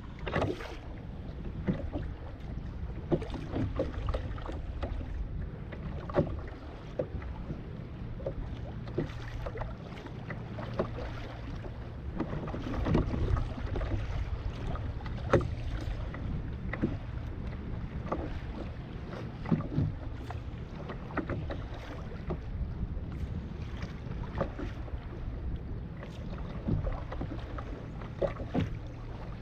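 Choppy sea slapping and splashing against a kayak's hull in irregular knocks, over a steady low rumble of wind on the microphone.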